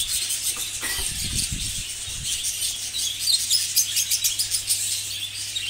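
A roomful of English (exhibition) budgerigars chattering, dense overlapping high chirps and warbles that grow busier about halfway through. A few low bumps come in about a second in.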